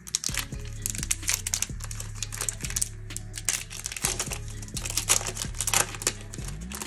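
Booster pack wrapper crinkling and tearing as a trading card pack is opened by hand: a dense, irregular run of crackles.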